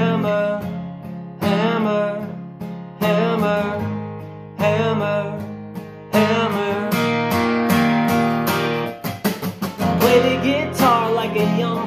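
Strummed steel-string acoustic guitar with a man singing over it. The first six seconds bring a big chord about every one and a half seconds, each left to ring. Then the strumming turns busier, with a run of quick strokes about nine seconds in.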